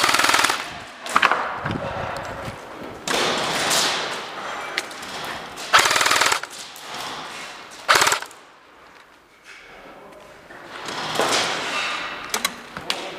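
Airsoft guns firing several short full-auto bursts of rapid clicking shots, with pauses between them.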